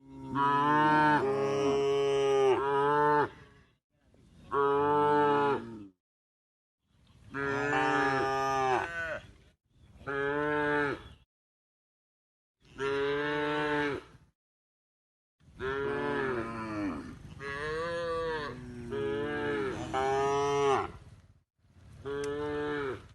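Domestic cow mooing in a series of drawn-out calls, about seven bouts separated by short gaps of complete silence, the pitch bending up and down within each call.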